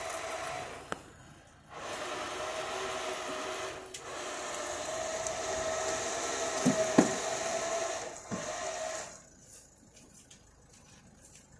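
Motor on a tow truck's flatbed running with a steady whine in three stretches, broken by two short pauses, with a couple of clunks about seven seconds in; it stops about nine seconds in.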